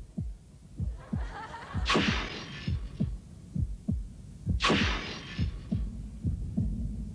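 Heartbeat sound effect: short low thuds in lub-dub pairs, about two a second, a suspense cue. Whooshing swells come through it about two and about five seconds in.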